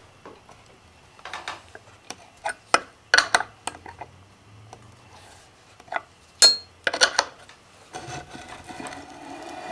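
Open-end wrench clinking on the nut and base of a metal lathe tool post as the nut is loosened to swing the post aside: scattered metal clicks and clanks, one clank ringing briefly about six and a half seconds in.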